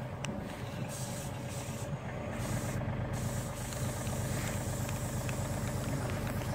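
An engine idling steadily, a low even hum that holds the same pitch throughout.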